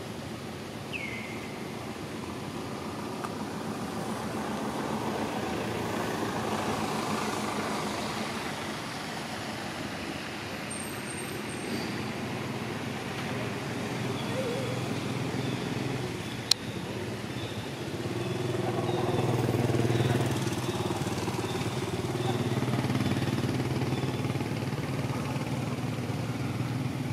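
Motor vehicle engines running nearby, with one coming closer and growing louder about two-thirds of the way through. A single sharp click comes near the middle.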